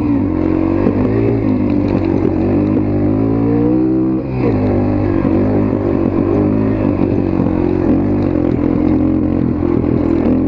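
Motorcycle engine running as it is ridden, its pitch rising and falling with the throttle. It drops off briefly about four seconds in, then picks up again.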